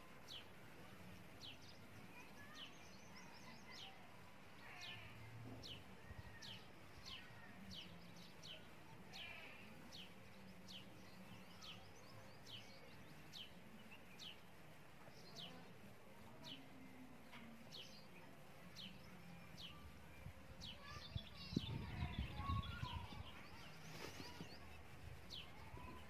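A small bird calling faintly over and over, a steady series of short, high, falling chirps about one or two a second, over faint outdoor background noise. A brief low rumble about twenty-one seconds in is louder than the chirps.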